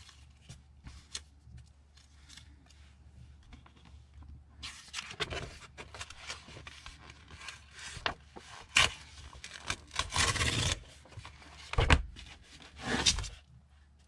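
Paper handling: faint small rustles at first, then from about five seconds in louder rustling and scraping as paper cutouts and a large book's pages are shifted and slid across a wooden desk, with several sharp rustles near the end.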